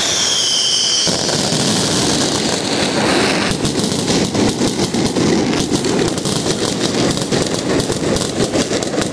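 Fireworks: a high whistle for about the first second, then a dense, continuous crackle that turns into rapid-fire bangs, many a second, from about three and a half seconds in.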